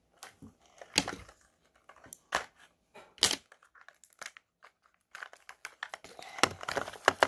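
Plastic wrapping on a Mini Brands toy capsule crinkling and tearing as it is pulled open by hand. There are sharp crackles and clicks, with the rustling getting denser near the end.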